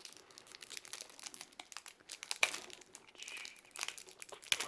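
Plastic wrapper of a Magic: The Gathering booster pack crinkling and crackling as it is worked open by hand, with irregular sharp snaps, the loudest about halfway through and near the end. The wrapper is hard to tear open.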